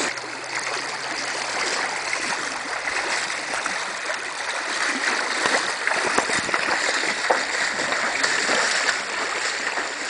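River water rushing steadily past wading legs, with many small splashes close by.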